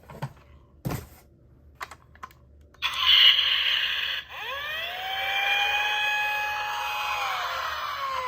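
A few light clicks, then about three seconds in a toy emergency vehicle's electronic siren starts loudly, its wailing tone rising, holding and falling slowly.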